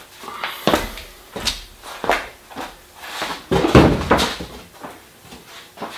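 Footsteps and a string of knocks and clunks, the loudest a heavy thud about three and a half seconds in, as a car door is opened and shut.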